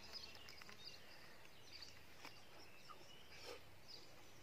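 Near silence: faint outdoor ambience with scattered small bird chirps.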